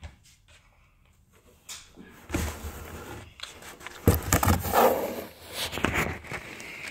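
Handling noise: a phone inside a cardboard box scraping and bumping against the cardboard as a hand reaches in and takes hold of it. It starts about two seconds in, with the loudest knocks around four seconds in.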